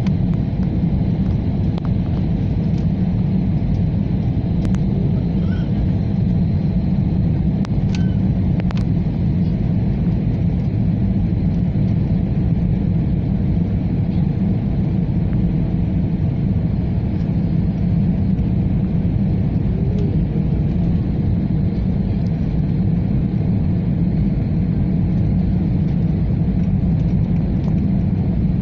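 Steady low rumble of engine and airflow noise inside the cabin of an Airbus A320-family airliner descending on approach, with a few faint clicks about five to nine seconds in.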